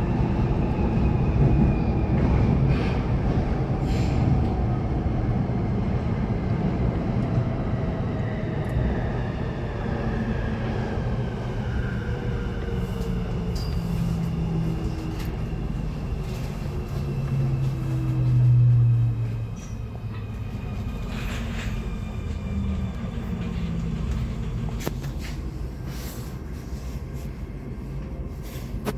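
Nuremberg U-Bahn train braking into its terminal station: the traction motors' whine falls steadily in pitch as the train slows, over a rumble of wheels on rail. About two-thirds of the way through, a low swell marks the last of the braking, and then a steadier low hum remains with a few light clicks.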